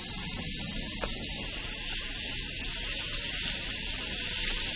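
Water running steadily from a kitchen tap into a sink, an even hiss.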